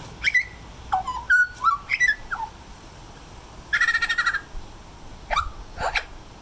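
Pet parrot whistling and chirping: a string of short whistled notes, some sliding up or down and one held briefly. A rapid buzzy trill follows midway, then two sharp chirps near the end.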